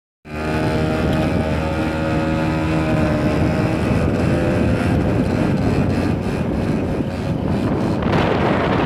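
Motorcycle engine running, cutting in abruptly. It holds a steady note for the first few seconds, then turns rougher, with wind noise near the end.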